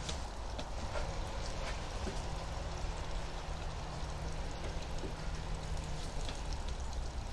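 Distant lawn-equipment engine running steadily: a low hum under an even rushing noise, with a few faint ticks.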